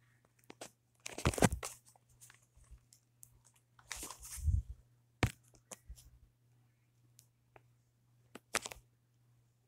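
Rustling and scraping handling noise from a hand moving against the phone and the fabric. It comes in two louder bursts, about a second in and around four seconds in, with a few sharp clicks later on.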